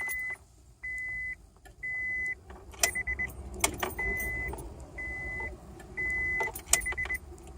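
A 2000 Honda Accord's warning chime beeping with the key in the ignition: a steady high beep about half a second long, repeating roughly once a second and twice breaking into quick short beeps. Several sharp clicks come in between as the ignition key is turned back and forth and the fob's lock button is pressed during remote programming.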